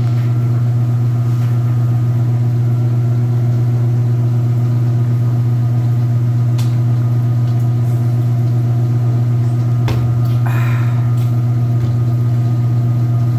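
Speed Queen washing machine running with its basket turning: a loud, steady motor hum with a few faint clicks and a brief rustle about two-thirds of the way through.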